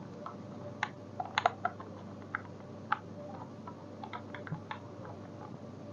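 Irregular light clicks and taps of parts being handled and pulled apart on an opened robot vacuum cleaner, the loudest a quick cluster about a second and a half in.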